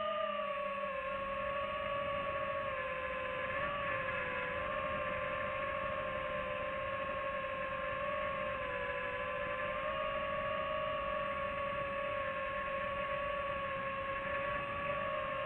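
FPV drone's brushless motors and propellers whining steadily, the pitch wavering slightly with small throttle changes, over a rushing hiss of air.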